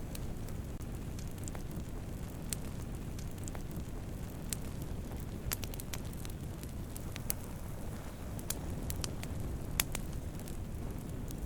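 Wood campfire burning: a steady low rush of flames with irregular sharp crackles and pops, one louder pop near the end.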